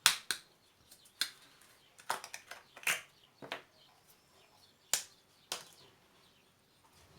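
Sharp clicks and taps of kitchen containers and utensils being handled while spices are added to a seasoning mix, about eight of them at irregular intervals.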